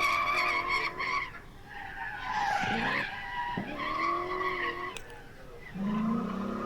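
Tyres squealing in long, shifting tones as a V8-powered BMW E28 drifts, with the engine revving up sharply about three and a half seconds in.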